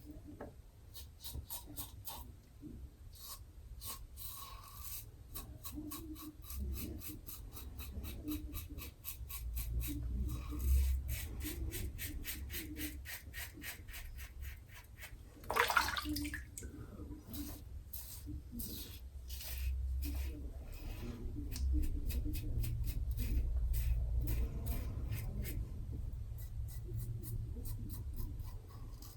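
Double-edge safety razor (a Carve Christopher Bradley with a Gillette Ruby blade) scraping through lathered stubble in many quick, scratchy strokes during the first pass. A brief louder swish comes about halfway through.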